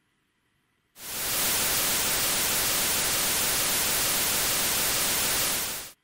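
Synthetic noise made by playing the first 20,000 digits of pi as audio samples, a 454 ms stretch looped seamlessly over and over: a steady hiss with a faint rhythm from the repeating fluctuations. It fades in quickly about a second in and cuts off suddenly at the end.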